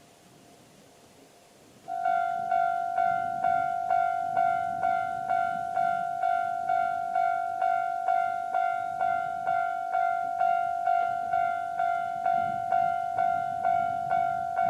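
Japanese railway level crossing warning bell starting up about two seconds in and ringing steadily, a repeated electronic ding at about two and a half strikes a second: the crossing is warning of an approaching train.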